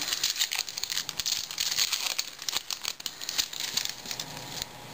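Foil wrapper of a 2010 Topps Series 1 baseball card pack crinkling and tearing as it is opened by hand, a quick run of crackles that dies away near the end.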